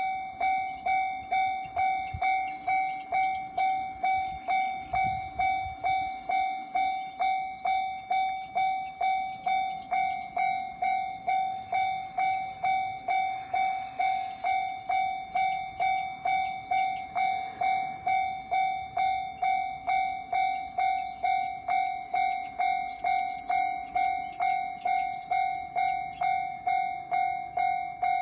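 Japanese railroad crossing's electronic warning bell ringing: one clear tone with overtones, repeated evenly just under twice a second. It starts up just before, signalling an approaching train with the gates coming down.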